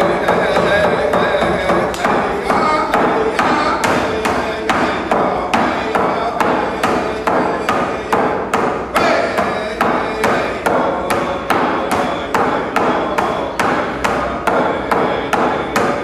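Native American hide-headed hand drum struck with a beater in a steady, evenly spaced beat, with a man singing a chant over it.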